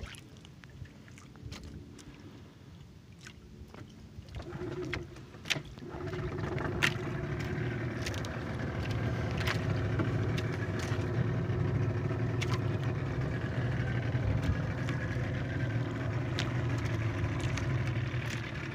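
A small fishing boat's engine sets in about five seconds in and then runs steadily at an even pitch, with scattered light knocks over it.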